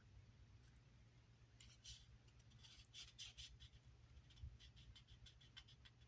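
Faint rustling and light clicking of thin Bible pages being leafed through, starting about one and a half seconds in, over a low steady hum.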